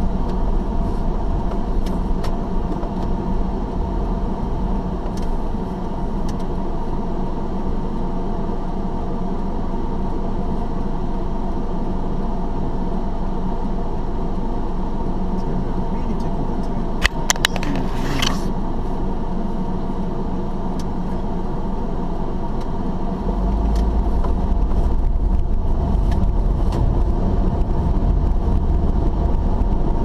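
Car's engine and road noise heard from inside the cabin, a steady hum. About halfway through there is a brief cluster of clicks. From about three-quarters of the way in the low rumble grows louder as the car gets under way on the open road.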